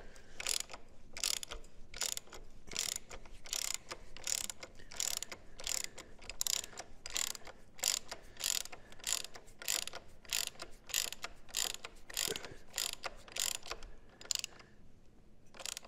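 Hand ratchet clicking steadily, about two to three clicks a second, as it runs nuts down snug on the lowering-link bolts of a dirt bike's rear suspension. It stops about a second before the end.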